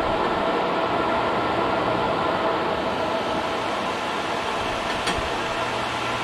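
Portable bandsaw sawmill running steadily, its engine and blade sawing a small log into boards.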